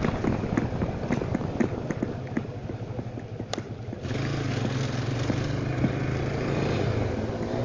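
Single-cylinder 250 cc motorcycle engine (Italika Tornado 250) under way. For about the first three and a half seconds it gives a run of irregular pops. From about four seconds in it settles into a steady, louder engine note.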